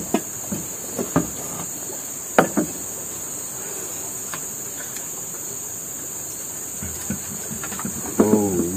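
Steady high-pitched insect chorus, with a few sharp clinks of a metal spoon and a spatula against plates and a cooking pot as food is served and eaten. A short voice-like sound near the end.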